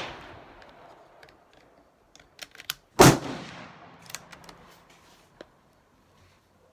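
A single rifle shot about three seconds in, with a short echoing decay under the range's covered roof. A few light clicks come before and after it, and the fading tail of an earlier shot is heard at the very start.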